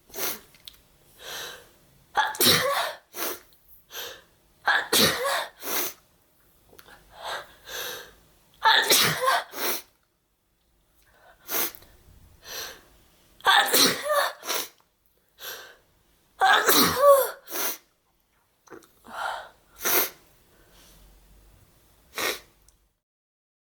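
A person with a heavy cold sneezing over and over, the sneezes induced. About a dozen short, loud sneezes come one after another, several in quick pairs, with shorter, quieter sounds between them.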